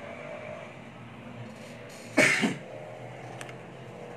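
A person coughs once, a short loud cough about two seconds in. A small click follows near the end.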